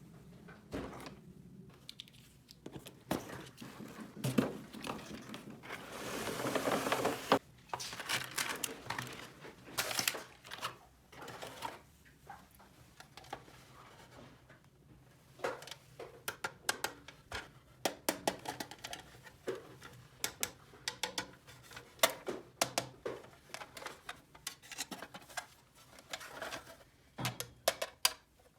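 Small plastic toy-kitchen pieces being handled, clicking and tapping many times, with about a second and a half of crinkling packaging about six seconds in.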